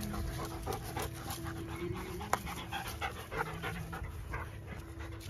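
German Shepherd dogs panting in quick rhythmic breaths, about three a second, with one sharp click a little over two seconds in.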